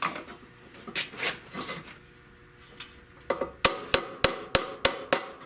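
A hammer tapping the bent-up edge of a Buick valve cover flat: a couple of light knocks, then a quick run of sharp metallic taps, about four a second, in the second half.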